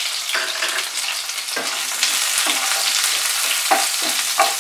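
Chopped onions sizzling in hot mustard oil in a nonstick kadai, with a flat spatula stirring and scraping them in repeated strokes.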